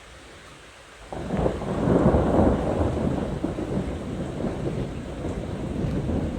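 Thunder from a thunderstorm: a loud clap breaks in suddenly about a second in over a steady hiss of rain, then rolls on as a long rumble.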